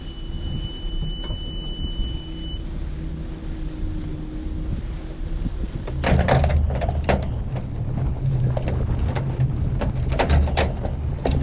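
A steady low rumble with a high, steady beeping tone that stops after about two and a half seconds. About six seconds in it gives way to heavy wind buffeting the microphone, with repeated sharp knocks and splashes as the sailing catamaran pitches through rough, short waves.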